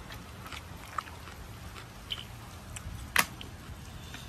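People eating rice by hand from foil-lined paper plates: soft chewing and scattered small clicks and crinkles of fingers and plates, with one sharper click about three seconds in, over a steady low rumble.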